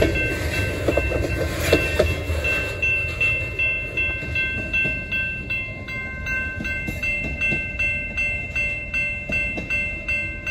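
Railroad grade-crossing bell ringing in rapid, even strokes. In the first two or three seconds it is joined by the rumble and wheel clatter of the last freight tank cars rolling past.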